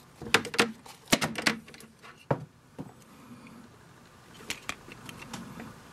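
Sunglasses being handled: a quick run of sharp clicks and taps in the first two and a half seconds, then a couple more clicks near the end.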